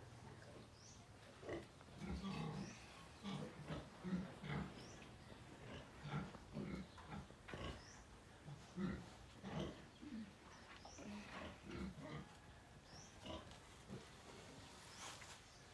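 Piglets grunting in short, irregular grunts while eating banana, with wet chewing and smacking clicks between the grunts.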